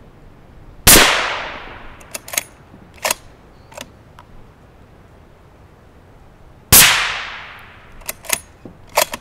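Two suppressed .338 Lapua Magnum rifle shots about six seconds apart, fired from a Ruger Precision Magnum fitted with a CGS Group Hekate 338 3D-printed titanium suppressor. Each shot is a sharp report with a long fading tail, followed by a few short clicks.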